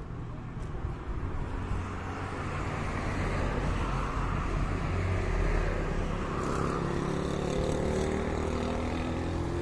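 Road traffic: a car drives past about four seconds in, over the steady low hum of an engine, and an engine note rises slowly in pitch over the last few seconds.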